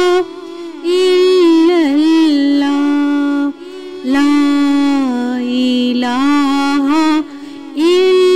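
Solo voice singing an Islamic lullaby (lori) in long, drawn-out notes with wavering ornaments, broken into phrases by three short pauses.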